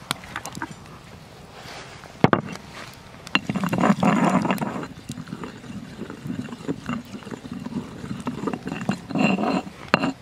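Stone pestle working chili paste in a stone mortar: a sharp knock about two seconds in, then two rough spells of grinding and mashing, one near the middle and one near the end, with scattered small clicks.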